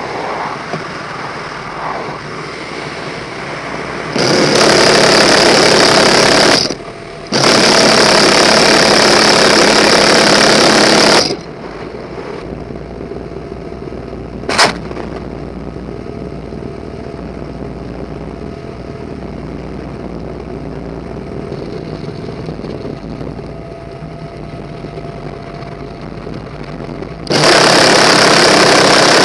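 GAU-17/A six-barrel 7.62 mm minigun firing from a UH-1Y Venom's door in three sustained bursts: a burst of about two and a half seconds, a longer one of about four seconds right after, and a third near the end. Each burst comes as one unbroken roar. Between bursts the helicopter's rotor and turbine noise runs steadily, with one brief sharp snap about halfway.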